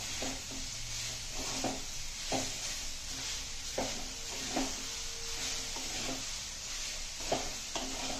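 Spatula stirring and scraping grated coconut and sugar in an aluminium kadai over a low flame, with a steady hiss as the moist coconut cooks. Irregular knocks come as the spatula strikes the pan.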